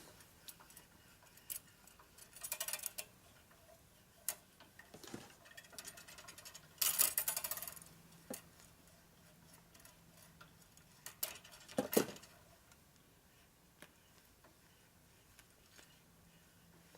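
Light metal clicking and scraping as a brake line nut is worked back and forth into a brake tee fitting with lapping compound on its threads, the threads too tight to go together. A couple of longer gritty scrapes come a few seconds in, and a sharp click near the middle.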